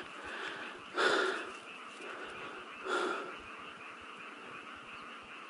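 Two short breathy huffs, about two seconds apart, over a faint steady background.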